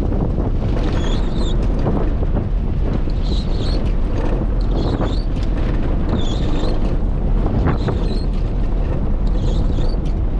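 Vehicle cabin noise on a rough dirt road: a steady rumble of tyres and engine. About every second and a half, the windscreen wipers squeak as they drag across the dry, dusty glass; the wiper blade is one the driver says is due for replacing.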